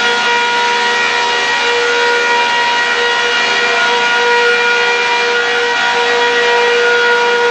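Sawdust machine (wood crusher) running steadily: a loud, constant rushing noise with a steady whine through it.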